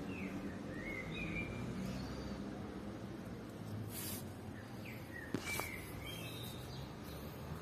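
Small birds chirping, short high calls in a few quick runs over steady outdoor background noise. A brief rustle about four seconds in, and a sharp click just past five seconds.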